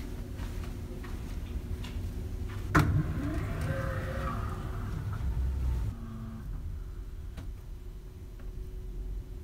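Low steady rumble of a ferry under way, heard inside its passenger deck, with a sharp knock about three seconds in and a few faint clicks.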